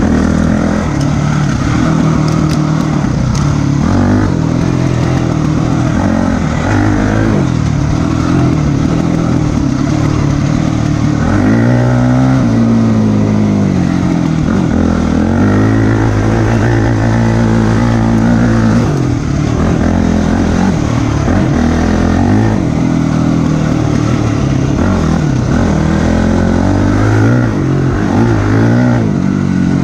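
Dirt bike engine revving up and down as the rider accelerates and rolls off the throttle on a dirt trail, the pitch rising and falling every second or two with a few longer climbs.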